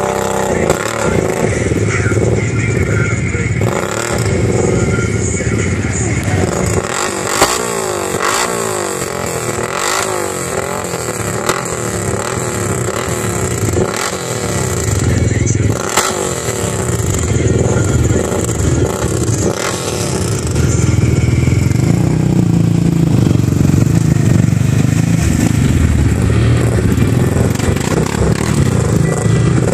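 ATV and side-by-side UTV engines revving as the machines churn through deep muddy water, the engine note rising and falling again and again. It grows louder about two-thirds of the way in, as the side-by-side comes closer.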